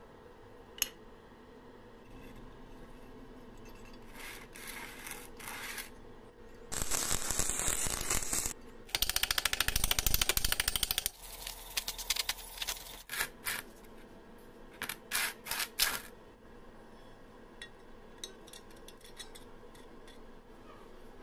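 Metalworking noises: a sharp click, then two loud harsh bursts lasting a couple of seconds each around the middle, the second a fast, even rattle, followed by a string of separate clicks and knocks.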